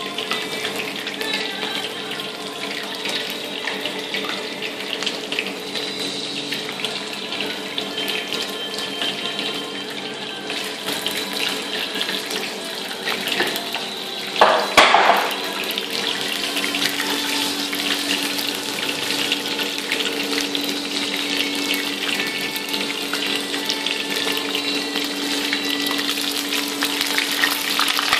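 Batter-coated chicken pieces deep-frying in hot oil in a wok: a steady, dense crackle and sizzle, with one brief louder burst about halfway through.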